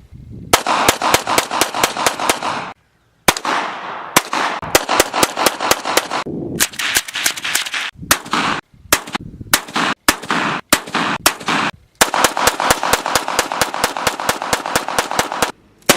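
Gunshots fired in quick succession, about four or five a second, in several short strings that cut off abruptly between clips. Heavy wind noise on the microphone fills the gaps between shots.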